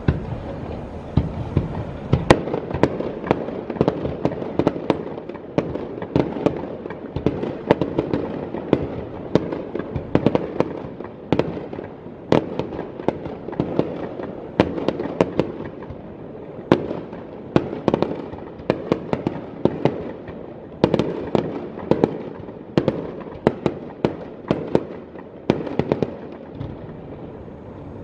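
Aerial firework shells bursting in a rapid barrage: sharp bangs, one to three a second, over a continuous rumble from the display.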